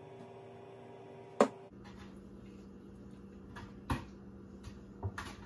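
Kitchen-counter handling while seasoning chicken in a metal baking pan: one sharp knock about a second and a half in, then a few softer knocks and taps. A steady low hum sits underneath.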